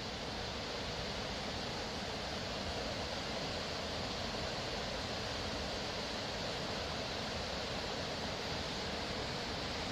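Steady, even rush of flowing water, with no separate events.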